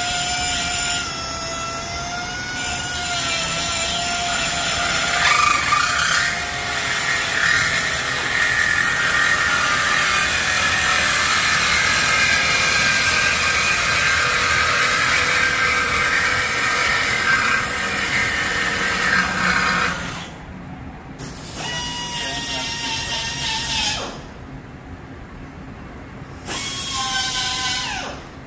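Power tool working on a car's exhaust system under a lift: a whining tool runs for several seconds, then gives way to a harsher rushing noise until about two-thirds of the way in. Near the end it stops and starts again in two short whining runs that cut off abruptly.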